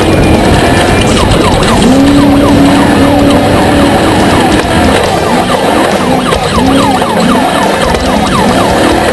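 A siren wailing up and down, with quick repeated yelps, over a steady rumble of engine noise.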